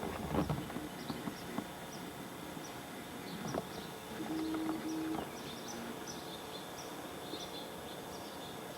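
Small birds chirping faintly over a steady outdoor hiss: many short high chirps scattered throughout. A few knocks come in the first second, and a short low tone sounds twice in quick succession around four to five seconds in.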